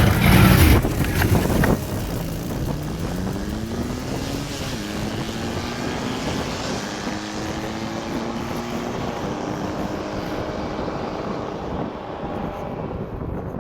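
ATV engine running on a trail. Loud wind rush on the microphone for the first couple of seconds, then the engine note rising as the quad speeds up and settling into a steady drone.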